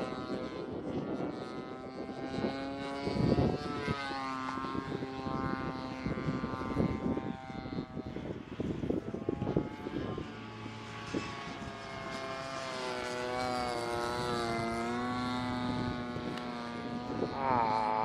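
Seagull Models Lazer 200 RC plane's engine and propeller running in flight, its pitch rising and falling through the manoeuvres. The engine mount is vibrating loose, leaving the spinner hanging low.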